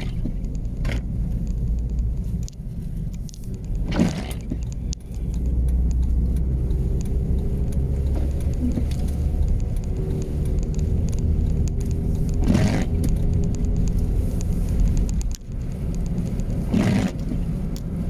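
Steady low engine and road rumble heard inside a vehicle's cab while it drives along a snow-covered highway, with the windshield wiper sweeping across the glass a few times, several seconds apart.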